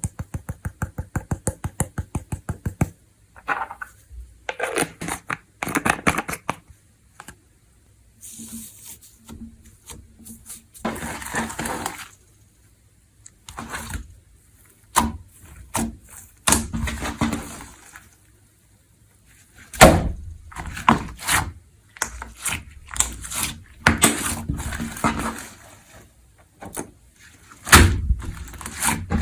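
Crunchy 'snow crispy' slime being worked by hand: a fast run of clicking crackles over the first few seconds, then irregular squishing, crackling and soft thuds as it is pressed and stretched.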